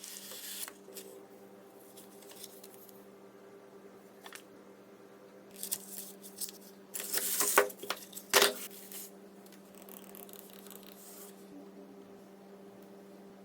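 Hands handling unboxing materials: scattered rustles and scrapes, a louder rustling burst about seven seconds in and a sharp knock just after, over a faint steady hum.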